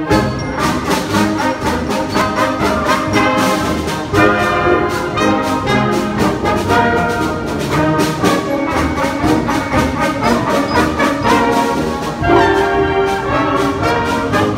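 Community concert band playing, brass in the lead: trumpets, saxophones, clarinets and tubas together, in a steady rhythm of separate notes.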